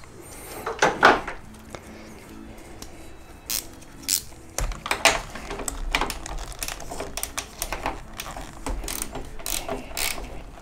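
Ratcheting box-end wrench clicking in short irregular runs, with metallic taps, as 13 mm nuts holding a brake booster bracket to the firewall are worked loose.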